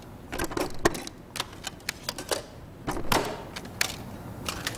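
Plastic clicks from handling a CD jewel case and a portable CD player, as a disc is put in to play: a run of irregular sharp clicks.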